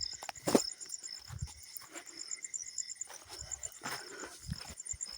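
Crickets chirping in a rapid, even, high-pitched pulsing, with a few sharp clicks and low thumps over it, the loudest clicks about half a second and about four seconds in.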